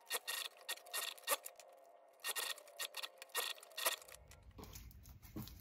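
Domestic sewing machine stitching Velcro onto stretch scuba fabric in short, slow runs: light clicking in small clusters, with a pause about two seconds in.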